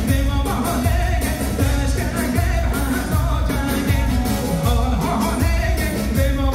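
A live band playing loud dance music, with a singer over a steady beat.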